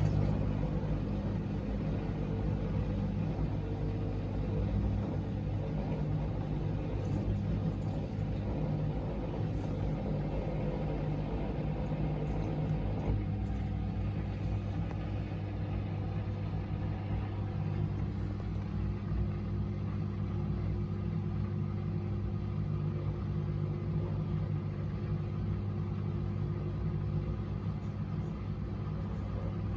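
Bosch SGS dishwasher running: a steady motor hum and rumble from its pump, with a rushing layer above it that eases off a little under halfway through.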